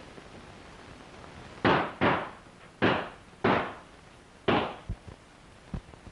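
Five gunshots in quick, uneven succession, each a sharp crack with a short echoing tail, followed by a couple of faint knocks.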